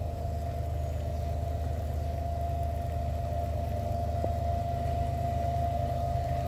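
CSX freight train's GE diesel locomotives, led by an ES44AH, running at low speed as they approach: a steady low engine rumble with a steady high whine over it.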